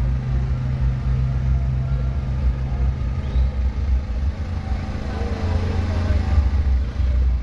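Engine of the vehicle carrying a large creature float idling, a steady low rumble with a constant hum.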